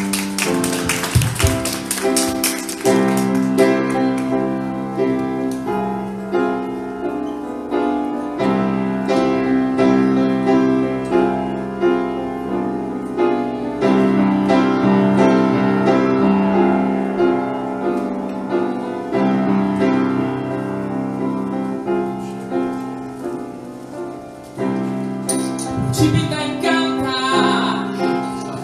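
Grand piano playing the opening of a song, a steady repeating pattern of chords. Near the end singing comes in over the piano.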